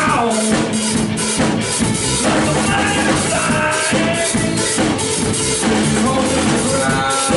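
Rock band playing live, with a drum kit keeping a steady beat under held melody notes.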